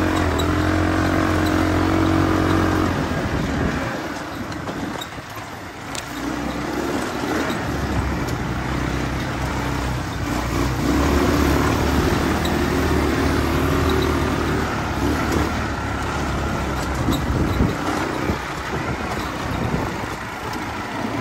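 ATV (quad bike) engine running as it rides along a dirt track, its note easing off briefly about four seconds in and again a few seconds before the end.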